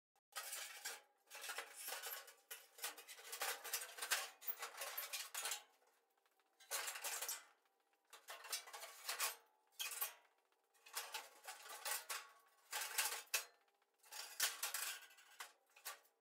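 Stamped steel floor pan clanking and scraping against a 1967 Mustang coupe's body shell as it is forced into place, in irregular clattering bursts with short pauses. The sound is sped up and turned down.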